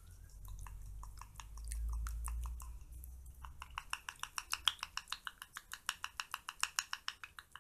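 A spoon stirring a thick paste of coconut oil, flour and honey in a glass bowl: short clicks of the spoon against the glass, sparse at first and then quickening to about six a second.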